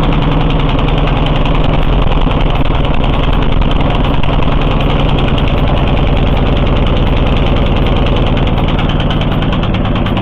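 Single-cylinder petrol engine of an Oka walk-behind tractor running steadily at idle, a loud, even rhythm of firing pulses.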